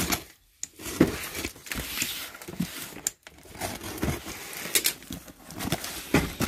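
Box cutter slicing through the packing tape on a cardboard carton, then the cardboard flaps being pulled open: irregular scraping, tearing and crinkling, with a sharp tap about a second in.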